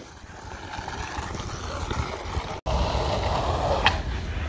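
Skateboard wheels rolling on concrete, a steady rumble that cuts out for an instant about two and a half seconds in and comes back louder, with a sharp click near the end.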